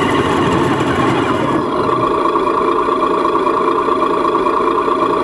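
HG P408 RC Humvee's onboard sound unit playing a simulated engine idle, steady, with its tone shifting slightly about a second and a half in.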